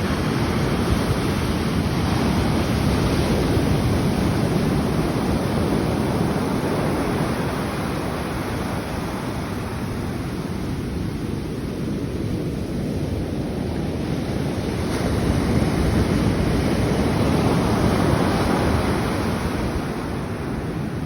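Pacific surf breaking on a beach, a continuous rushing wash that swells louder twice, the second time about fifteen seconds in.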